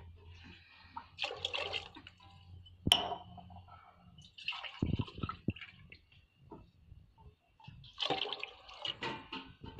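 Water poured from a steel glass into a pot of chickpea curry, in several separate pours, splashing into the masala. A sharp clink about three seconds in.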